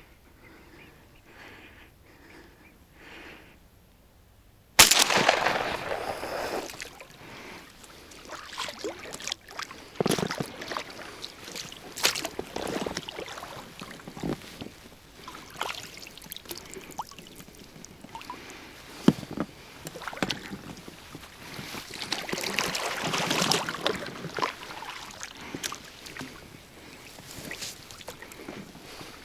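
Small inflatable boat handled on the water: irregular knocks, clicks and splashing, with a sudden loud knock about five seconds in.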